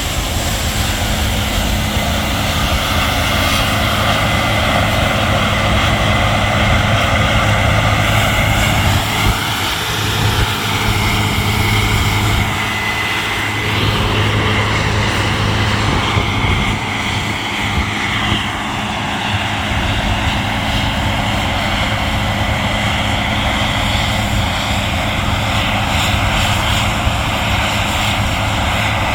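Heavy harvest machinery running steadily: a diesel engine drone with a constant low hum under dense mechanical noise, and a slight rise and fall in pitch partway through.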